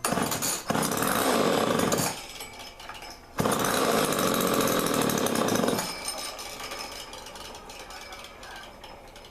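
Freshly rebuilt old Homelite two-stroke chainsaw engine, running with no chain fitted, revved up twice for about two seconds each time. It then drops back to a lower, quieter running that slowly fades.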